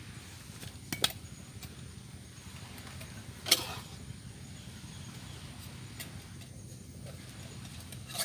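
Handling noises as a green military-style canteen is worked into its fabric cover: a few light knocks and clicks, with a louder short scraping rustle about three and a half seconds in, over a steady low background rumble.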